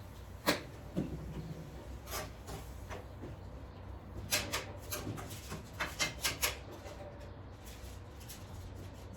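Light clicks and taps of kitchen utensils being handled while cooking: a few single taps, then a quick run of them a few seconds in, over a steady low hum.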